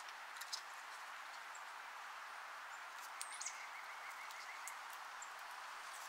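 Steady rush of wind through pine trees, with a few brief high bird calls and a short rapid trill about three seconds in, and scattered faint clicks.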